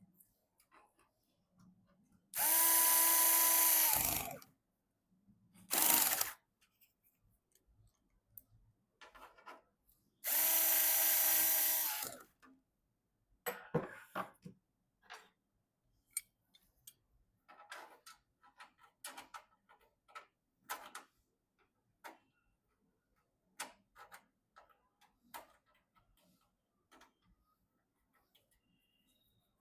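Small electric screwdriver running in two bursts of about two seconds with a steady whine, plus a shorter burst between them. Light clicks and taps of parts being handled follow.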